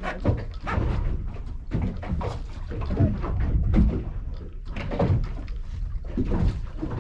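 Irregular knocks and thumps with water splashing over a steady low rumble, as a tope is netted and a blonde ray lifted aboard a boat.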